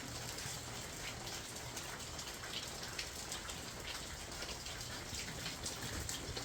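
Steady heavy rain falling, with many small drop ticks in an even hiss.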